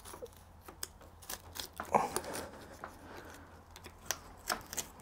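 A boning knife cutting through pork and scraping along the rib bones as the belly meat is separated from the spare ribs: quiet, irregular clicks and scrapes, with a longer scrape about two seconds in.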